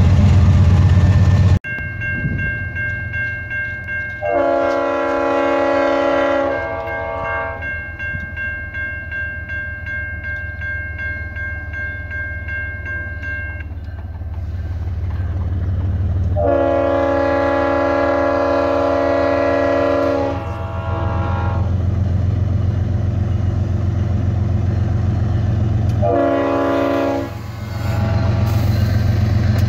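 Diesel locomotive rumble that cuts off abruptly under two seconds in, then an approaching CSX freight locomotive sounding its air horn over the rumble of the train. The horn gives two long blasts, a short one, and a long one starting near the end: the long-long-short-long grade-crossing signal.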